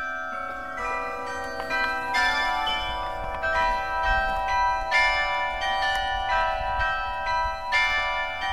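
A 49-bell carillon played from its hand-and-foot keyboard: bells struck one after another, a new note every third to half second, their tones ringing on and overlapping into a continuous peal.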